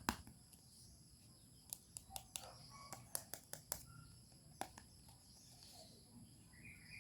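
Light clicks and taps from small toy pieces or packaging being handled, in a few short quick runs over faint hiss.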